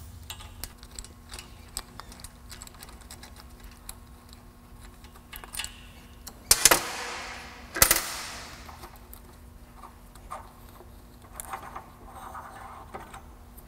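Hand ratchet clicking in quick runs of small ticks while backing out the bolt that holds the differential's centering pin, with two louder knocks a little past the middle.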